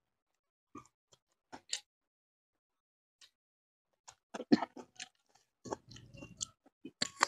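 Close-miked chewing of fish and rice, with wet mouth clicks and lip smacks. It is sparse in the first couple of seconds, then thickens into quick smacking from about four seconds in.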